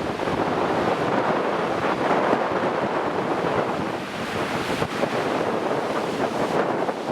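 Strong, gusty wind rushing over the microphone, mixed with surf, in the wind that follows behind a passing typhoon.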